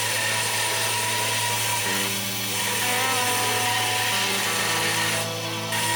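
Belt grinder running steadily with a low motor hum under the noise of the belt, grinding a knife handle to shape; the grinding sound shifts slightly a couple of times as the work is pressed to the belt.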